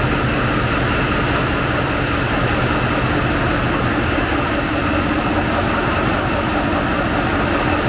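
Caterpillar 3516B-HD V16 twin-turbo diesel engines idling in the engine room, a loud, steady drone that holds unchanged.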